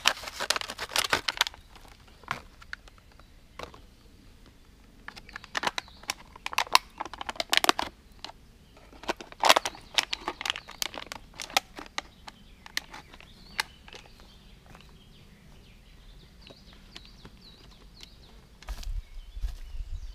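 Plastic water bottle crinkling and crackling as it is handled, in several bursts with quieter pauses between them. A low rumble comes in near the end.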